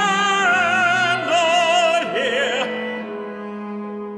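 Operatic baritone holding a sung note with wide vibrato over cello and piano accompaniment; the voice stops a little over halfway through, leaving the ensemble's sustained notes to fade.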